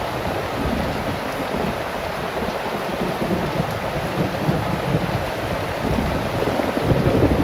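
Heavy rain pouring steadily, with a low, uneven rumble underneath that swells toward the end.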